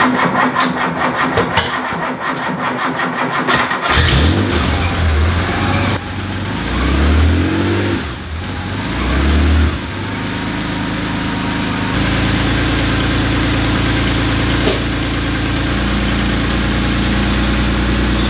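Porsche 911's air-cooled flat-six started on a cold morning through a freshly welded custom exhaust with RSR headers. The starter cranks it evenly for a few seconds until it catches about four seconds in; it is revved and blipped a few times, then settles into a steady idle.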